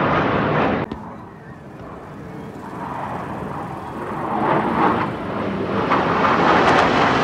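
Jet engine roar of the Black Eagles' KAI T-50B formation flying past. After a sudden drop a little under a second in, the roar builds steadily louder over several seconds as the jets approach.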